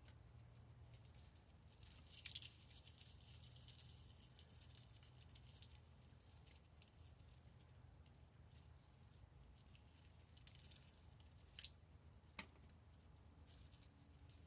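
Faint dry rustling and light clicks of broken pinecone pieces being handled and placed. There is a louder rustle about two seconds in and two sharp clicks near the end, over a low steady hum.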